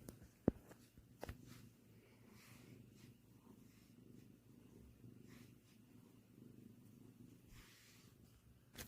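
Domestic cat purring, a faint steady low rumble, with a sharp knock about half a second in, a smaller one just after a second, and a brief rustle near the end.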